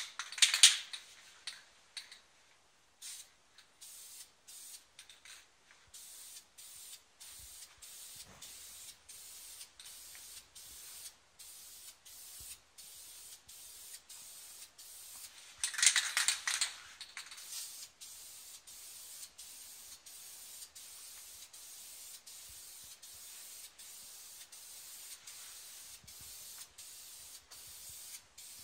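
Aerosol spray paint can hissing in bursts as paint is sprayed: a loud burst right at the start and another about halfway through, with a faint hiss in between.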